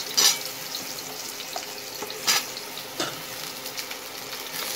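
Pointed gourd pieces sizzling in hot oil in a kadai, with a steady hiss. A spatula stirring them strikes the pan three times, loudest just after the start.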